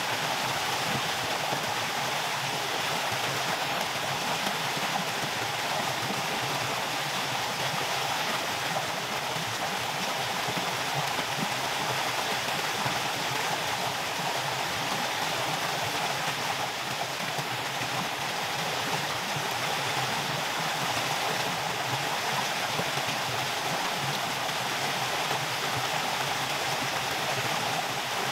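Small waterfall spilling over rocks into a stream, a steady rush of water.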